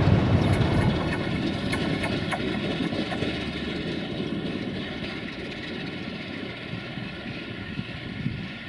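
Class 060-DA (LDE2100) Sulzer diesel-electric locomotive running away from the listener, its engine drone fading steadily. In the first few seconds its wheels click over rail joints and points.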